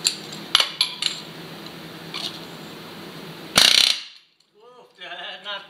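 Pneumatic air hammer driving a wheel stud into a brake rotor hub. A few sharp metal clicks and taps come first, then a loud burst of rapid hammering lasting about half a second, three and a half seconds in.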